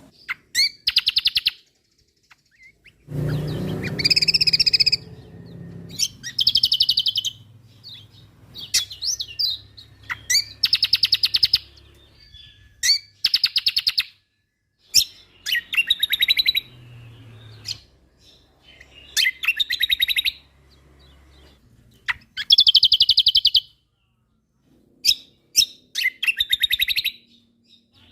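Kecial kombok (cucak kombo) songbird singing in full voice: loud, rapid trilled phrases about a second long, repeated every second or two with short pauses. A low rumble comes under the song about three seconds in.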